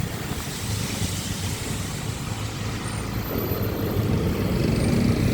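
Motorcycle riding in town traffic: its engine and the engines of nearby trucks and cars run together with road noise, growing a little louder toward the end.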